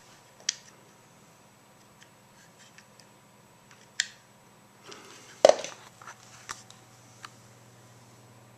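A few separate sharp clicks and taps over a faint steady hum, the loudest a knock about five and a half seconds in.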